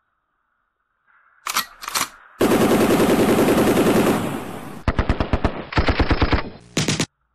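Automatic gunfire sound effect: a couple of quick shots, then a long rapid burst of about two seconds, followed by several shorter bursts that cut off abruptly.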